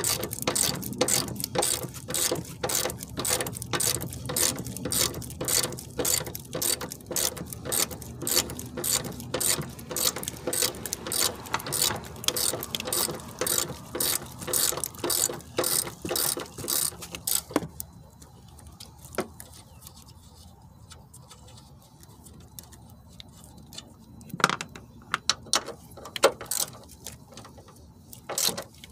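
Hand ratchet wrench clicking steadily, about three clicks a second, as it backs off the nuts on top of the strut mount. The clicking stops about two-thirds of the way through, then a few more clicks come near the end.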